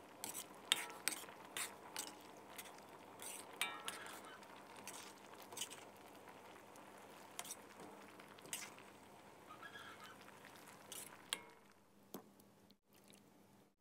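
Metal ladle stirring soupy curry in a metal wok, with faint scattered clinks and scrapes of metal on metal.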